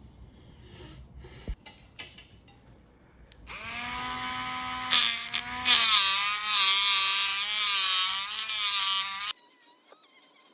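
Dremel rotary tool starting about a third of the way in and running at speed, a high whine whose pitch wavers as it grinds against the die-cast car. It stops shortly before the end, after a few light handling clicks at the start.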